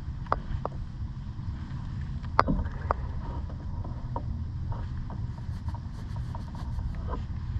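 Steady low wind rumble on the microphone of a camera riding along on a road bike, with scattered clicks and knocks from the bike on the road. The sharpest knock comes about two and a half seconds in, and a run of faint quick ticks follows between five and seven seconds in.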